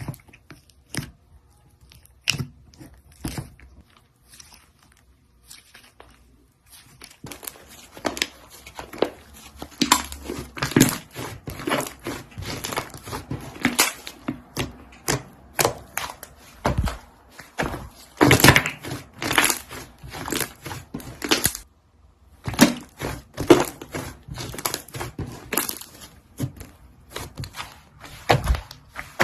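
Slime being squished and kneaded by hand, giving many sticky clicks and pops. They are sparse at first, then come thick and fast, with a brief pause about two-thirds of the way through.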